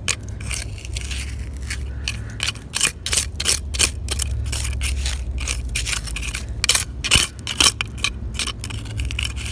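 Hands raking and scraping through gritty river-foreshore mud full of pottery, brick and clay-pipe fragments: an uneven run of short scrapes and crunches over a steady low rumble.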